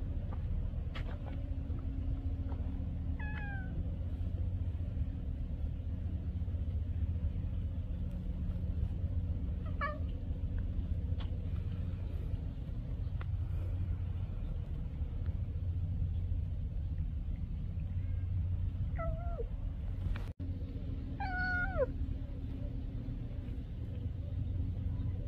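A hungry stray domestic cat meows four times, short calls several seconds apart, the last two close together near the end. Under them runs a steady low rumble.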